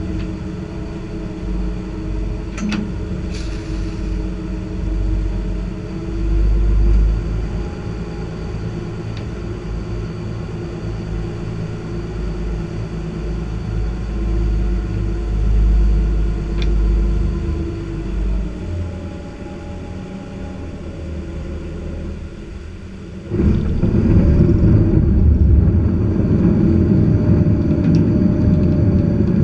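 Lobster boat's engine running steadily under way, a low rumble with a few faint clicks. About 23 seconds in the sound jumps suddenly louder and rougher in the low end and stays there.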